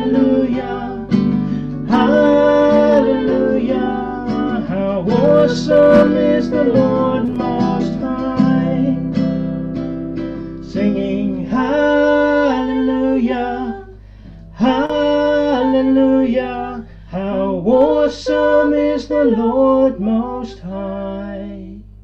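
A man and a woman singing a worship song to strummed acoustic guitar. About halfway through, the guitar stops and the voices carry on unaccompanied, in separate phrases with short gaps.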